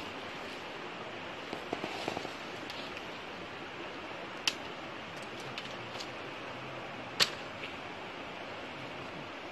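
A few sharp, brief cracks or snaps over a steady outdoor hiss. A cluster of small ones comes early, and two louder single cracks come about halfway through and again about two seconds later.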